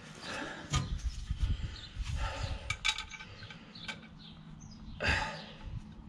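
Handling noise of a bolt being started by hand into a VW Beetle's clutch pressure plate: a few light metallic clicks and knocks, the loudest about five seconds in, over rustling of gloved hands. Faint bird chirps in the background.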